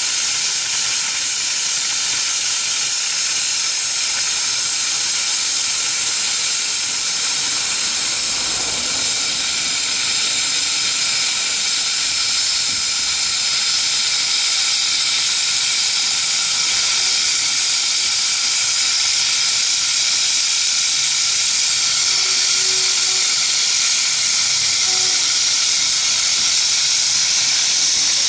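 Steady hiss of steam escaping from a small steam tank locomotive standing at rest.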